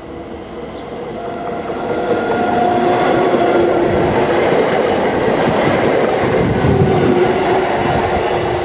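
Newag Impuls electric multiple unit approaching and passing close by. The sound swells over the first two seconds or so into a steady loud rumble with a steady whine on top, and wheel clatter comes through in the second half.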